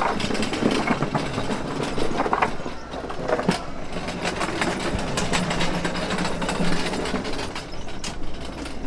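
Continuous rattling and clattering as a plastic crate loaded with sundae is moved along, with many small clacks over a low steady rumble.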